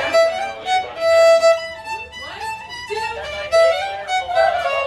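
Fiddle music: a violin playing a melody, with held notes and sliding pitches.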